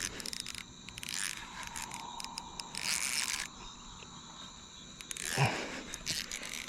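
Insects chirring steadily in the background, with several short bursts of noise over it, the longest about half a second long near the middle.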